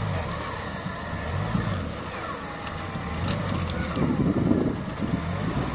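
Off-road 4x4's engine revving up and down repeatedly as it works in a muddy rut, loudest and roughest about four seconds in.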